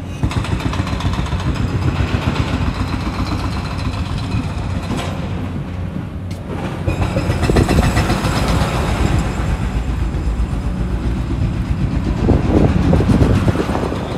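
Wind buffeting the microphone: a steady, loud rumble that swells around eight seconds in and again near the end.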